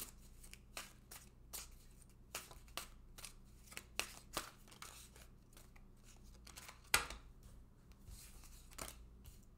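Tarot cards being shuffled by hand: a run of short card slaps and flicks about twice a second, with one louder snap about seven seconds in.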